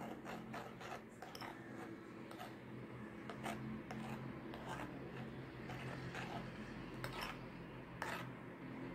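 Metal spoon stirring thick infant-cereal porridge in a ceramic bowl, scraping and clinking against the sides in an irregular run of strokes, over a steady low hum.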